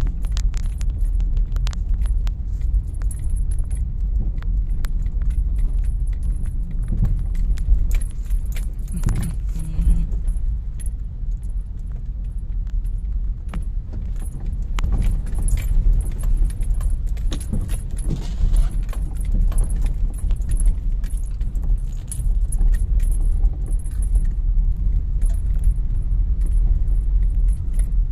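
Car driving in heavy rain on a potholed road: a steady low rumble of engine and tyres with frequent rattling and clicking throughout as the car jolts over the holes.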